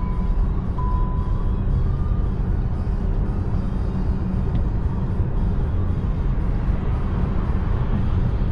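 Steady road and tyre rumble with wind noise inside the cabin of a Volkswagen ID.3 electric car at about 90–95 km/h on a motorway. Two short, steady high beeps sound in the first second or so.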